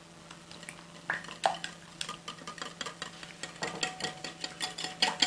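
A utensil stirring a runny milk-and-egg marinade in a deep bowl. From about a second in it clicks and taps rapidly against the bowl's sides.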